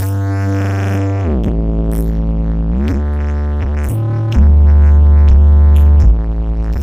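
Loud electronic dance music with deep synth bass notes that slide down and up in pitch, played through a large 'sound horeg' carnival sound system. The bass gets louder about four and a half seconds in, then drops back about a second and a half later.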